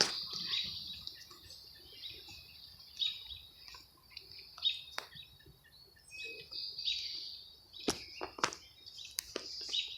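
Small birds chirping and calling on and off, high and thin, with a few sharp clicks in the second half.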